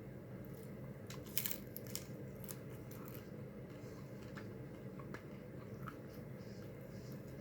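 Close-up eating of tacos: crisp crunches, clicks and wet chewing sounds at irregular intervals, the loudest crunch a little over a second in, over a steady low background hum.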